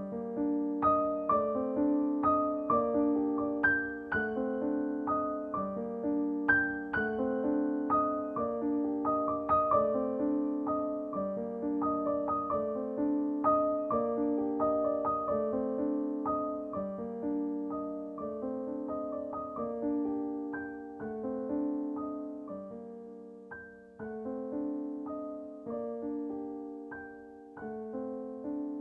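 Background piano music: a steady, repeating pattern of gentle notes over a rocking low figure, fading out near the end.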